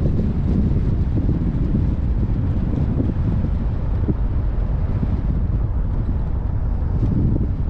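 Low, uneven rumble of wind buffeting the microphone, mixed with road noise from a car driving along a paved road.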